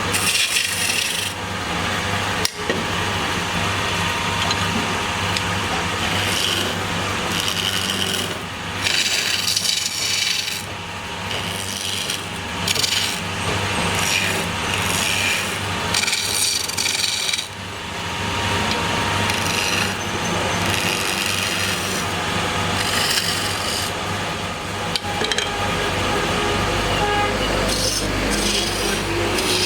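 Wood lathe running: a steady motor hum under the scraping noise of a cutting tool shaving the spinning wood, growing louder and softer as the cut goes on.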